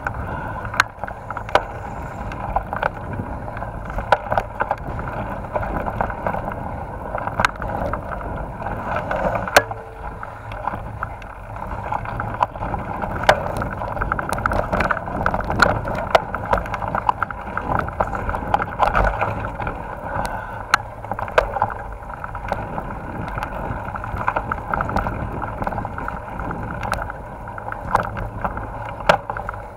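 Mountain bike riding fast down a rough dirt trail: a continuous rattle and rumble of the bike over the ground, with frequent sharp knocks and clicks throughout.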